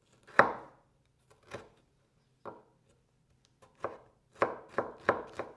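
Kitchen knife chopping a red chili pepper on a wooden cutting board: a few separate knocks at first, then quicker chopping at about three strokes a second over the last two seconds.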